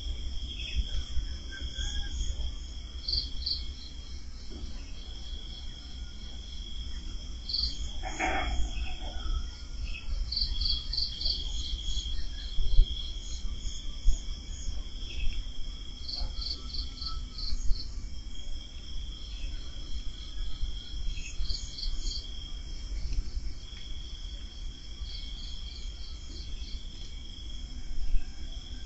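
Night insects, crickets among them, chirping: a steady high trill that breaks off every few seconds, with short runs of quick chirps above it. A low rumble runs underneath, and a brief sound comes once about eight seconds in.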